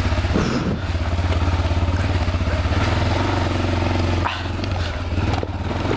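Honda 400EX quad's single-cylinder four-stroke engine running under way on a trail ride. Its note changes about three seconds in and drops briefly just after four seconds.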